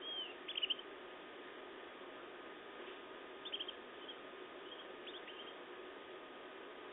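Canaries giving short, high chirps in quick clusters of three or four, about half a second in, again around three and a half seconds and near five seconds, over a steady low background noise.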